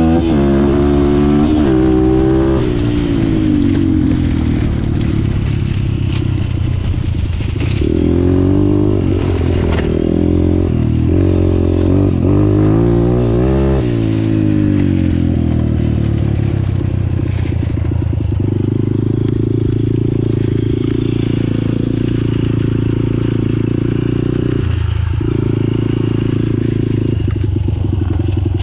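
A Honda CRF150F's single-cylinder four-stroke engine running under the rider, revving up and down through the gears with repeated rising pitch glides in the first few seconds and again around the middle. In the second half it settles into a steadier note.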